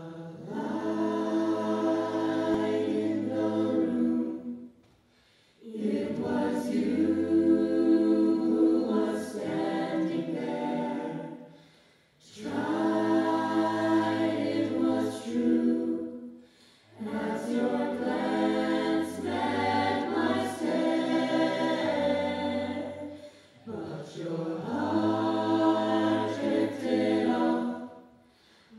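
A mixed vocal jazz ensemble singing close-harmony chords into handheld microphones, in five long held phrases with short breaks between them.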